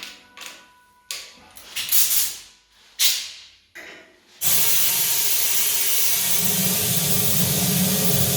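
Hissing spray: several short bursts that fade quickly, then a loud, steady hiss from about four and a half seconds in.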